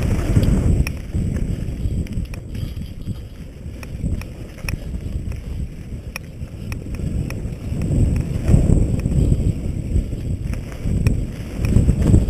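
Mountain bike descending a rough dirt trail: wind buffets the microphone and the tyres rumble over dirt and rocks, with scattered clicks and rattles from the bike. The rumble swells near the start and again from about eight seconds on.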